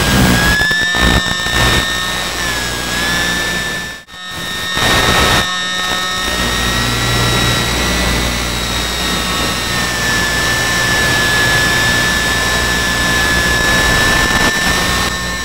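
Small electric motor and propeller of an ultra-micro RC plane whining steadily in flight, over hiss and wind noise from the onboard camera. The pitch wavers slightly, and the sound drops out for an instant about four seconds in.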